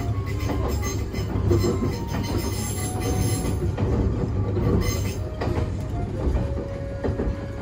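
Nagano Electric Railway limited express train (ex-Odakyu Romancecar) running along the track, heard from inside the front observation cabin: a steady rumble of wheels on rails, with short thin squeals of wheel on rail and one longer squeal near the end.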